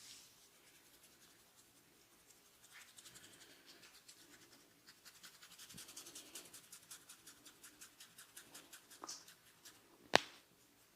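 Fingers scratching and rubbing quickly over hair and scalp in a head massage. The rasping strokes come in a fast, even rhythm that grows louder a few seconds in, and a single sharp snap sounds near the end.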